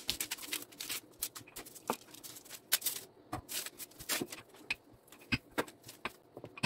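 Wooden rolling pin rolling out dough on a sheet of baking paper: irregular soft clicks, taps and paper rustles as the pin and hands work the dough flat.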